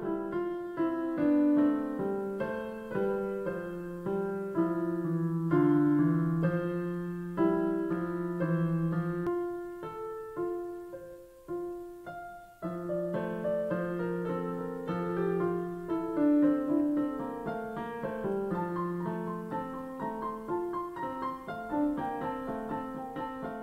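Background piano music: a slow melody of single struck notes over lower chords, each note fading away. It thins out and dips briefly about ten to twelve seconds in, then carries on.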